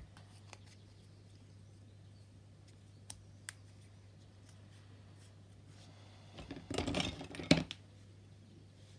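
Small plastic model-kit parts and hobby tools handled on a cutting mat: two light ticks about three seconds in, then a short burst of clicking and rattling about six and a half seconds in that ends in a sharp snap.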